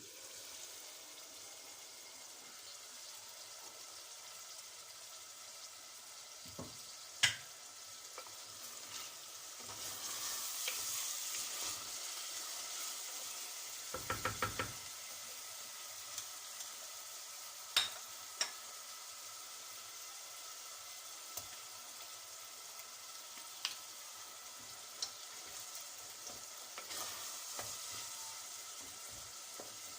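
Food sizzling as it fries, stirred with a utensil: a steady hiss that gets louder about ten seconds in, with scattered sharp clicks of the utensil against the pot and a quick run of about six knocks around the middle.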